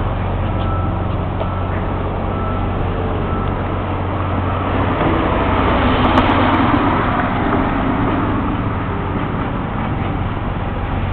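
Street traffic noise: a steady low engine hum, with the broad rush of a vehicle swelling to a peak around the middle and then easing off.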